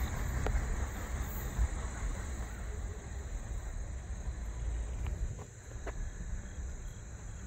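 Steady high-pitched chorus of crickets over a constant low rumble, with a few faint clicks.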